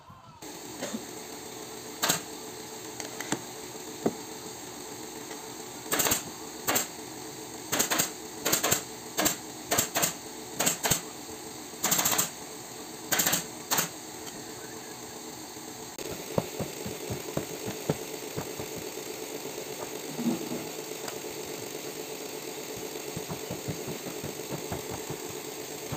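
Pneumatic upholstery staple gun firing staples into fabric on a wooden sofa frame, about a dozen sharp shots, some with a short burst of air, coming in quick runs from about two seconds in until about halfway through. A steady mechanical hum runs underneath.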